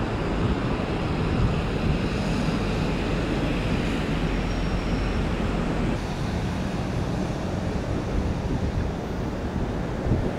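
Steady rumble of road and airport traffic, with wind buffeting the microphone.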